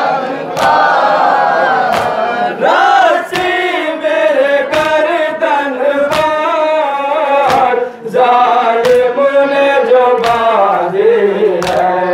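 A Shia noha (mourning lament) sung by a man into a microphone, with a crowd of men chanting along. Sharp slaps mark a steady beat about every three-quarters of a second, the sound of the mourners' matam (chest-beating) keeping time.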